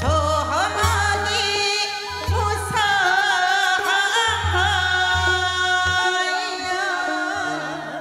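A woman singing Seodo sori, Korean northwestern folk song, with a heavy, wavering vibrato over traditional instrumental accompaniment.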